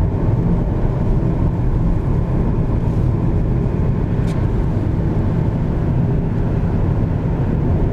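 Steady low rumble of a car driving on an asphalt road, heard from inside the cabin: engine and tyre noise.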